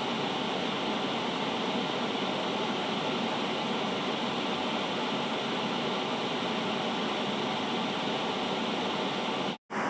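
Analogue television static with no signal: a steady hiss of white noise. It cuts out for a split second near the end and then resumes.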